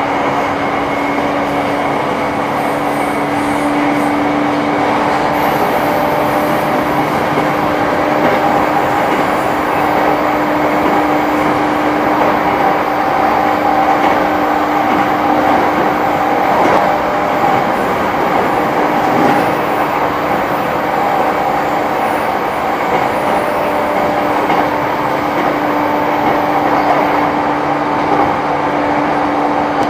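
JR East E235-1000 series electric commuter train running at speed, heard from inside a passenger car: steady rolling noise with a constant hum.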